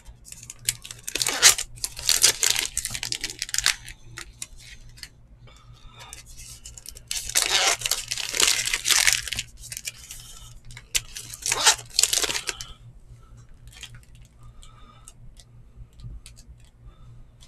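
Foil trading-card pack wrappers being torn open and crinkled, in three loud bursts, with light clicks of cards being handled in between.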